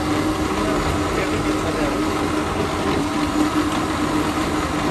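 A steady mechanical hum with one constant tone, over even background noise and low rumble.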